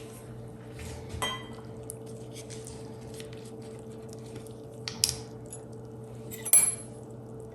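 Kitchenware clinking while ingredients are measured into a mixing bowl: a few separate clinks, about a second in, around five seconds in, and the loudest shortly after, with faint light ticks between, over a low steady hum.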